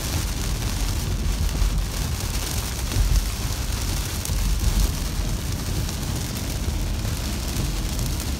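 Heavy rain hitting a moving car, heard from inside the cabin, with tyre noise on the soaked road beneath it: a steady rushing hiss over a low rumble.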